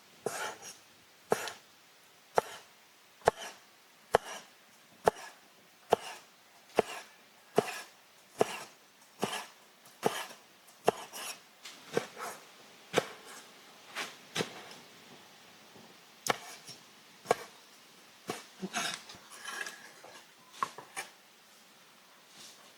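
Knife chopping on a wooden board in steady strokes, about one a second. After about sixteen seconds the knocks turn quicker and more irregular.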